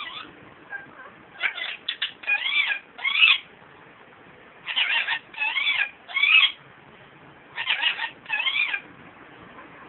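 Young female Indian ringneck parakeet calling in three bursts of short squawks and pitch-bending, warbling notes, with pauses between them.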